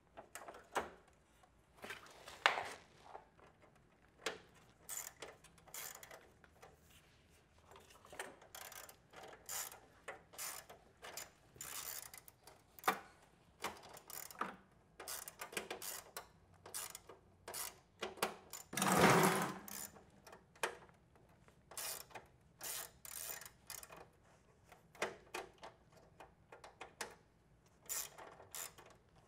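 Irregular clicks, scrapes and metallic knocks of hand work on a drinking fountain's sheet-metal chiller cabinet and its fasteners. There is one longer, louder clatter about two-thirds of the way through.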